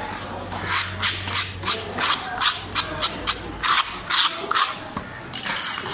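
Quick scraping strokes on a wet wooden chopping block, about three or four a second, as a gloved hand sweeps fish scraps off it.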